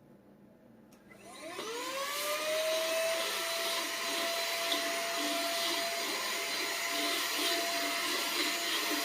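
Brigii battery-powered handheld mini vacuum cleaner switching on about a second in, its motor whine rising as it spins up, then running steadily while vacuuming up spilled sand.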